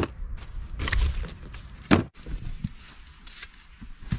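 Things being handled: two sharp knocks, one at the start and one about two seconds in, with rustling and shuffling between and after them.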